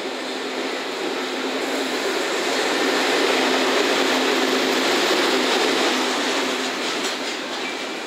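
EF65 electric locomotive passing at close range, followed by Chiki flat wagons loaded with long rails: a steady rumble of running wheels that swells toward the middle and eases near the end, with a steady low hum beneath it that fades out near the end.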